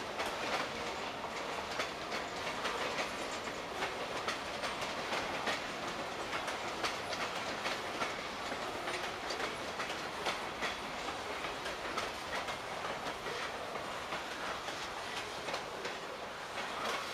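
Freight cars rolling past, the wheels clicking again and again over rail joints in a steady rumbling clatter.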